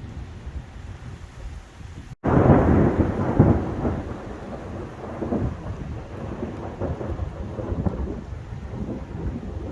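Wind rumbling on the microphone, then about two seconds in a loud thunderclap breaks suddenly and rolls on as a long low rumble that slowly eases off.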